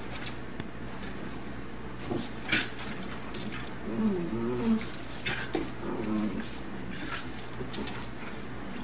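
Two dogs play-fighting: short growls and whines with scuffling and light clinking, starting about two seconds in.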